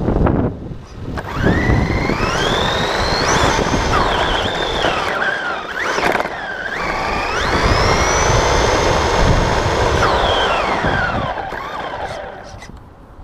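Team Associated RC10B4.2 electric buggy heard from on board: the motor and drivetrain whine climbs in pitch as it accelerates about a second in, dips briefly around six seconds, climbs again and holds, then falls away as it slows near the end, over the rumble of its tyres on the road.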